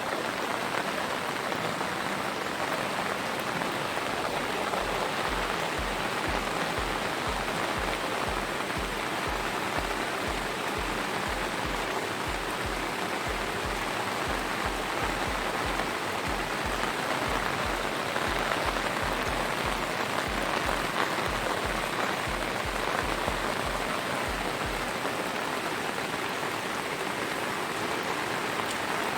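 Steady, even hiss of falling water, like heavy rain, with a faint low, regular thudding underneath from about five seconds in until near the end.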